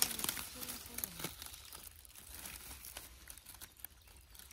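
Dry leaf litter on the forest floor rustling and crackling as it is handled and stepped on, with sharp crackles that are densest in the first second and then thin out.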